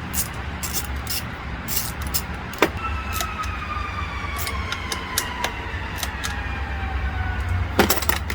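Scattered clicks and knocks of plastic trimmer parts and tools being handled, with a quick cluster near the end, over a steady low hum. A faint tone falls slowly in pitch from about three seconds in.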